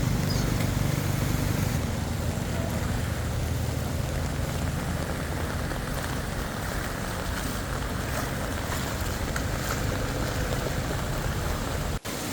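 Heavy tropical rain falling as a steady hiss, with a low hum fading out over the first few seconds.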